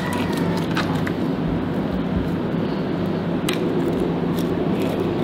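Hands stuffing sliced lemongrass into the cavity of a raw sea bass: soft squishing of wet flesh and a few light clicks. A steady low hum sits under them.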